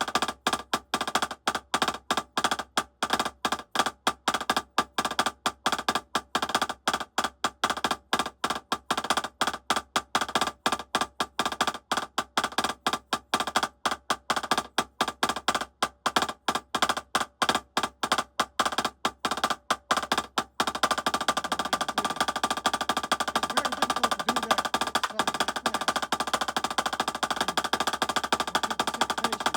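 Drumsticks playing a syncopated three-stroke-roll exercise: crisp strokes in quick groups. About 21 seconds in, the strokes close up into a fast, continuous roll.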